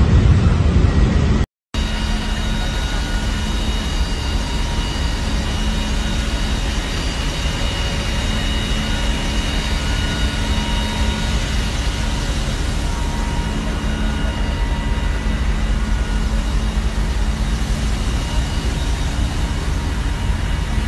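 Steady noise of a car driving, heard from inside the cabin, with a few faint steady high tones over it. The sound drops out briefly about a second and a half in, then carries on unchanged.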